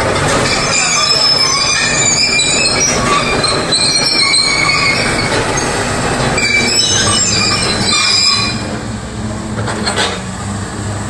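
Kobelco SK200 hydraulic excavator running and moving its boom and arm, with loud high-pitched squealing and screeching in repeated bursts over a low engine rumble; the squealing dies away about eight and a half seconds in.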